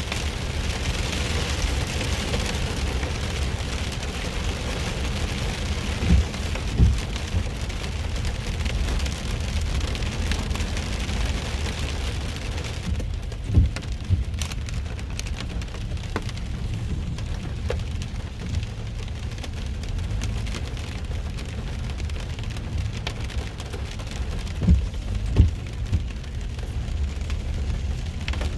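Heavy rain falling on a car, heard from inside the moving car over a steady low road rumble, with a few dull thumps. The high hiss of the rain drops off sharply about halfway through.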